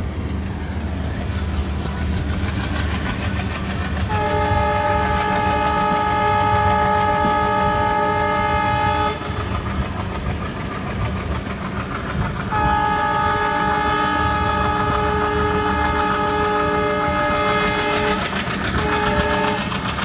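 WDM-3D diesel locomotive's air horn sounding two long blasts about eight seconds apart, the second broken near the end by a short toot, over the steady chugging of its ALCO 16-cylinder diesel engine as the train pulls away. Under it the coaches roll past close by with a clickety-clack of wheels.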